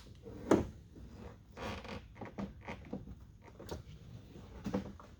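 A truck door mirror being worked by hand while it is still held by a hidden push tab: a sharp knock about half a second in, then irregular clicks, rattles and short scrapes.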